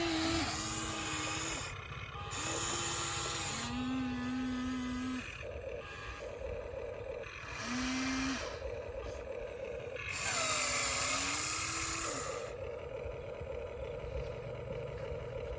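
Excavator working: a low engine rumble with a whine that holds and glides up and down in pitch as the machine is loaded. Several stretches of hiss come and go.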